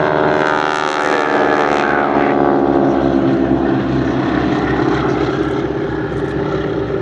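Boeing Stearman biplanes' radial engines and propellers running at display power as they fly past. The engine note falls in pitch over the first couple of seconds, then holds steady.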